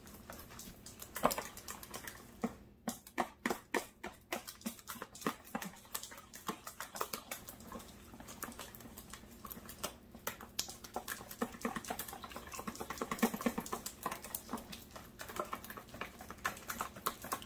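Wire whisk beating egg batter in a plastic mixing bowl: a fast, continuous run of clicks and taps as the wires strike the bowl, briefly pausing twice.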